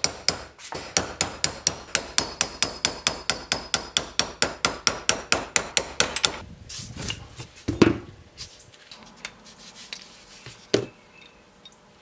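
Hammer driving a steel pin punch against the hinge pin of a 1971 Chevy C10 door hinge held in a vise, to drive the pin out. The blows are quick and even, about four a second, and stop about six seconds in. Two single knocks follow later.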